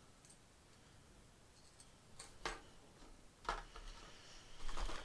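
A few faint, irregularly spaced clicks and knocks from a hard plastic jerkbait being handled.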